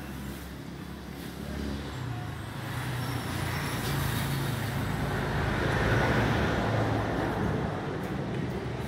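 Scania L111 truck's diesel engine idling with a steady low throb. It grows louder toward the middle and eases off near the end.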